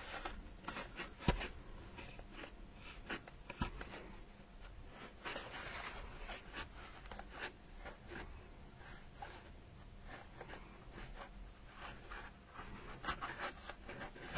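Faint scratching and rubbing as a pointed tool pushes felt edges into slits cut in a polystyrene foam pumpkin, with scattered small ticks.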